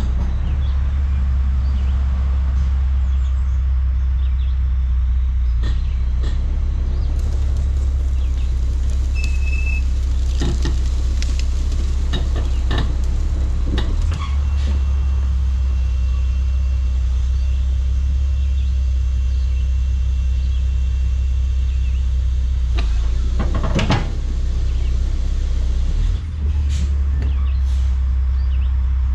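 Dump truck's diesel engine running in a steady low rumble while the truck turns and backs up on gravel, with a few short sharp clicks and hisses over it.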